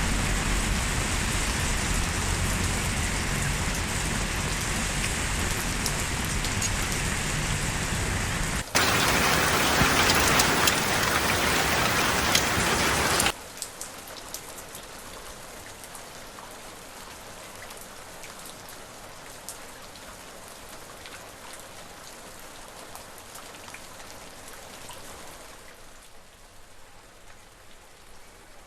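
Steady rain falling. It turns heavier and louder about nine seconds in, then cuts off suddenly a few seconds later to a much softer, lighter rain with scattered drops, which fades a little near the end.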